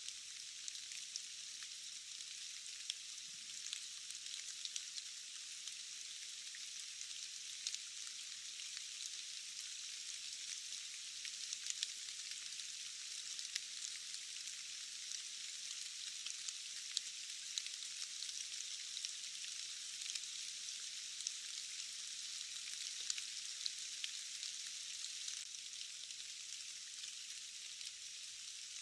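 Steady rain falling, an even hiss dotted with many small ticks of individual drops. The sound is thin and bright, with no low end.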